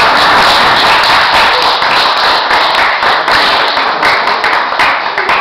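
Small audience clapping, dense at first and thinning into separate, scattered claps near the end.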